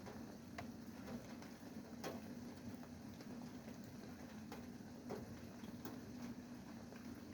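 Rain drips striking a hard surface, irregular sharp ticks about once a second, over a steady low hum.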